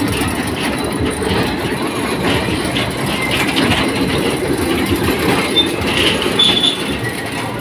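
Bumper cars running around the rink: a steady rolling rumble with continuous clattering from the cars on the floor, and two brief high squeaks near the end.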